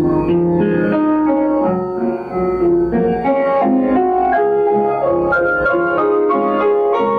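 Piano playing a hymn in full, sustained chords, the chords changing about every half second.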